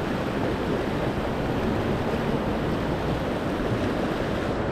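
Steady rush of river water running over rocks in a riffle.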